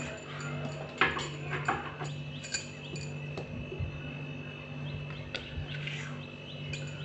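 The white plastic lid of a steel mixer-grinder jar is handled and lifted off, with a few sharp knocks and clinks, the loudest about a second in. A low steady hum runs underneath. The mixer motor is not running.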